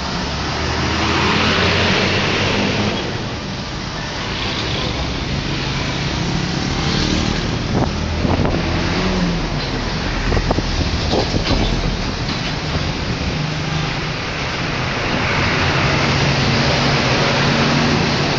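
Road traffic: a vehicle engine runs low and steady under road and wind noise, which swells twice, shortly after the start and near the end.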